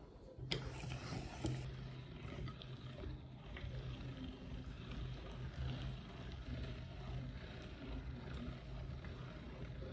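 Hand-cranked metal meat grinder being turned, its auger forcing a chocolate bar through the die plate: a steady low grinding rumble with scattered small clicks, after a sharp knock about half a second in.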